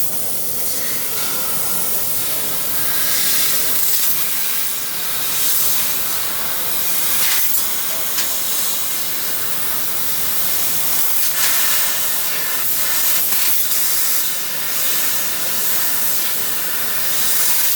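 Fiber laser cutting machine cutting stainless steel sheet: a steady, loud hiss of the assist gas jetting from the cutting head, with a few short sharp clicks.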